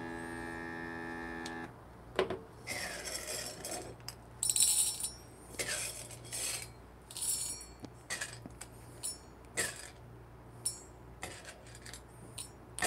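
Whole roasted coffee beans rattling and clinking in irregular short bursts as they are picked out of a canister by hand and dropped into a small stainless-steel dosing cup, weighing out an espresso dose.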